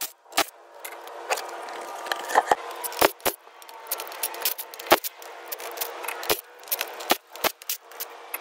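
Cordless impact wrench whirring as it spins lug nuts off a truck wheel, with sharp metallic clicks and rattles from the loose nuts and socket.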